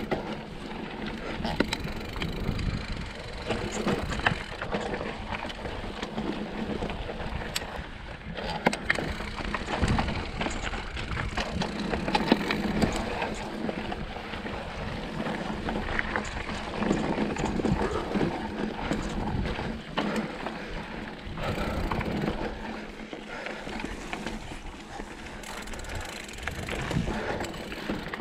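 Mountain bike ridden over rocky dirt singletrack: tyres on dirt and rock, with the bike rattling and knocking sharply over bumps and a fluctuating rumble of wind on the microphone.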